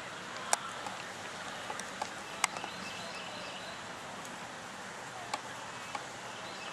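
Open-air ambience: a steady background hush with a few sharp clicks or knocks, two of them louder, and faint bird chirps.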